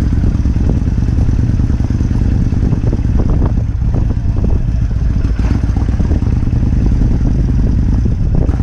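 Kawasaki Vulcan 1600 Classic's V-twin engine running steadily as the motorcycle pulls away and cruises at low speed.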